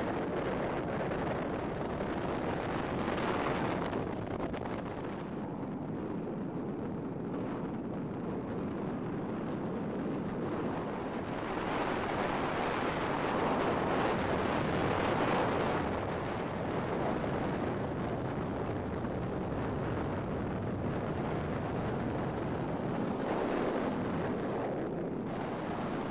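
Wind blowing over the microphone together with the road noise of a moving car, swelling and easing a few times.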